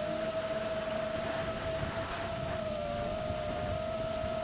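FPV drone's motors and propellers whining at a steady pitch that wavers slightly about three seconds in, over a low rush of wind.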